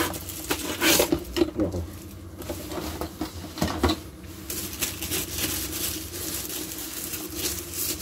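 Handling noise from unboxing a mini vacuum cleaner: a box and its packing rustling, with irregular clicks and knocks as the packaging is opened and the unit taken out.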